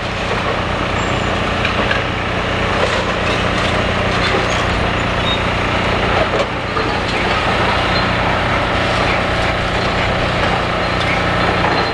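Demolition excavator's diesel engine running steadily under load, with crunching and cracking as its crusher jaws chew through a large piece of concrete.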